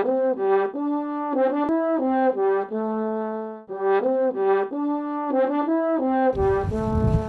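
A short brass melody, horn-like, played as two matching phrases of stepping notes. It cuts off near the end and gives way to low rushing wind noise on the microphone.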